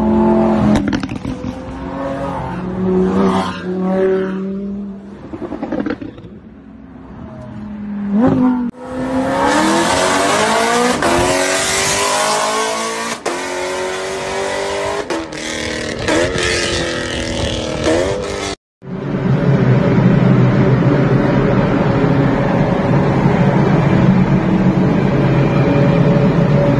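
Supercar engines revving and accelerating across a series of short clips. A Lamborghini Aventador V12 pulls away in traffic, then a sports car accelerates hard with its pitch climbing through several gear changes, then a steady high-speed engine note echoes in a tunnel.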